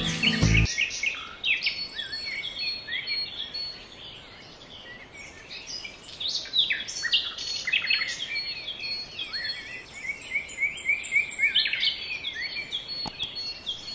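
Many small birds chirping together, a dense chorus of short rising and falling calls. A music track cuts out about half a second in.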